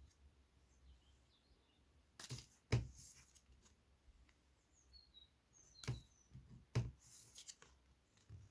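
Pokémon cards being handled and laid down on a table: short taps and paper rustles about two to three seconds in and again around six to seven seconds. Faint bird chirps in the background.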